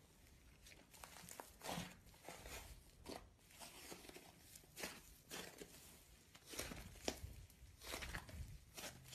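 Thick yellow slime being stretched, pulled and squished by hand, giving a string of faint, irregular sticky pops and clicks.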